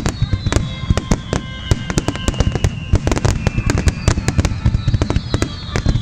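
Finale barrage of aerial fireworks: rapid bangs and crackles several times a second, with high whistles falling slowly in pitch over them.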